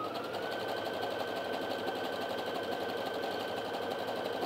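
Brother Innov-is F420 computerised sewing machine stitching a zigzag seam at a steady speed. Its motor whine rises to a steady pitch in the first half second, over a fast, even needle rhythm.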